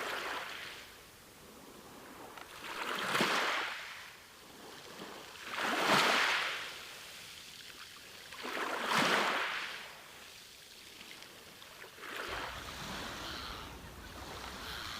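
Sea waves breaking on a beach, a surge of surf about every three seconds that swells and fades away. For the last few seconds the wash turns steadier and a low rumble joins in.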